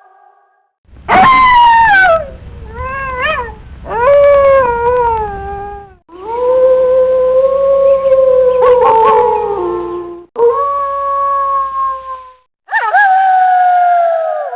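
Wolves howling. After a brief pause, one howl slides down from high to low, followed by a few short rising-and-falling yips and then more howls, including one long, steady howl. Near the end several wolves howl together, their voices overlapping.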